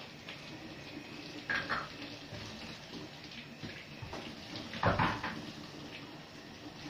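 Kitchen tap running into a stainless steel sink while dishes are washed by hand, with a few knocks and clinks of dishes, the loudest about five seconds in.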